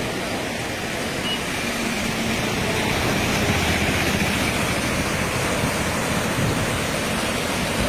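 Fast, swollen floodwater rushing and churning past a bank: a steady loud rush of water, a little louder after about two seconds.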